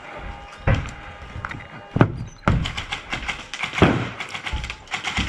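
Several heavy thumps, the loudest about two seconds in, then quick runs of sharp clicks typical of airsoft guns firing and BBs striking hard surfaces.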